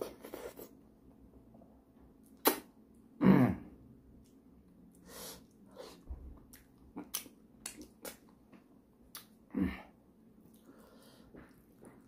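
A person eating pork leg in gravy and buckwheat dhindo with the hands, close to the microphone: scattered wet smacks and clicks of chewing and lips. Two louder, sudden throat sounds come about three and ten seconds in.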